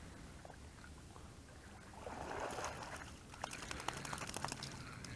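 Faint water splashing about two seconds in, then a quick run of small sharp clicks lasting about a second.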